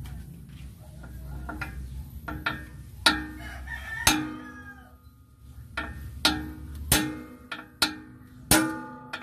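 Hammer blows ringing on a steel drift held against a truck drum brake's shoe anchor pin, driving the pin out to free the brake shoe. About nine sharp metallic clanks start about three seconds in and come closer together near the end. A rooster crows faintly early on.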